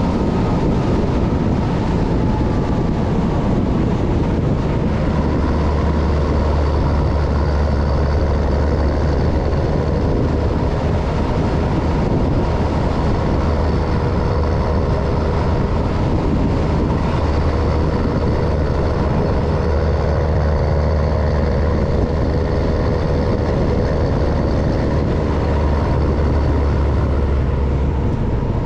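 MAN LE280B 4x4 truck's diesel engine running steadily on the move, with drivetrain and road noise. A deep low drone grows stronger about five seconds in, and a faint high whine sits above it.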